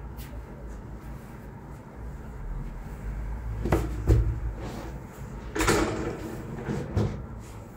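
Handling noises from a person in a bear costume settling at a counter: a few sharp knocks and bumps, one loud at about four seconds, and a longer scrape or rustle near six seconds, over a steady low rumble.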